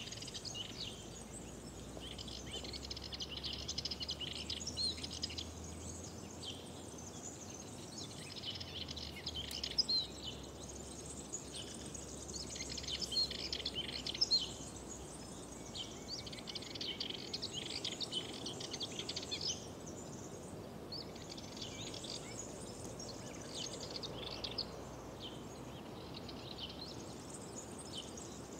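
Wild birds singing: a near-continuous chorus of quick chirping phrases that come in bouts of a few seconds, over a faint steady background hiss.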